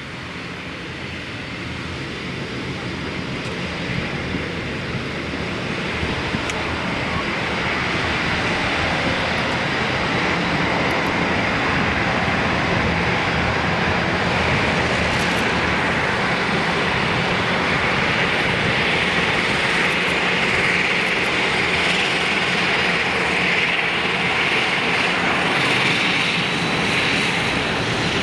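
Bombardier Dash 8-402 (Q400) twin turboprop engines running at low power while the aircraft taxis, a steady propeller drone. It grows louder over the first several seconds, then holds level.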